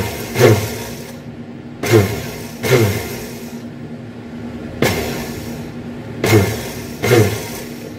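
Electric countertop blender pulsed in about seven short bursts. Each whir of the motor dies away with a falling pitch. The pulsing breaks the sauce ingredients down small before the blender is run at speed.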